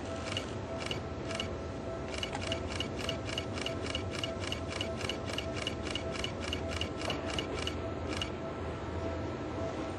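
Electric train of Seibu Series 101 cars approaching slowly, a low running sound. Over it comes a rapid, regular metallic ticking with a slight ring, about four strikes a second, which starts with a few spaced ticks and stops about eight seconds in.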